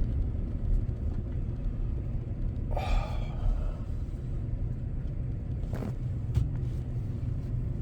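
Steady low rumble of a car's cabin on the move, with a short sound about three seconds in.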